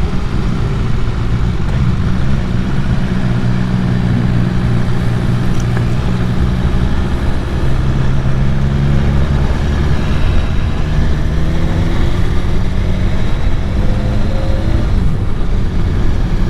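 Motorcycle engine running while riding, with heavy wind and road noise over the microphone; the engine note shifts up and down a little in pitch.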